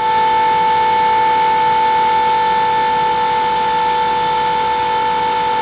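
A steady, high-pitched machine whine, one unchanging tone with overtones, from the equipment on a bomber's rotary missile launcher stand in a weapons maintenance shop.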